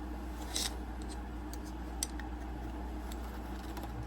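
Handling noise from a flashlight being fitted into its accessory: a few light clicks and taps, the sharpest about half a second in and another near two seconds, over a steady low hum.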